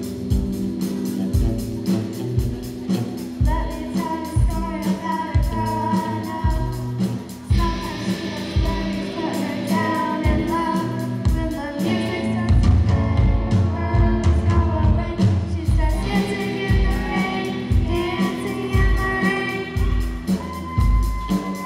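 Young girls' rock band playing live: electric guitars and a Yamaha drum kit with a steady kick-drum beat, and girls' voices singing the melody from a few seconds in.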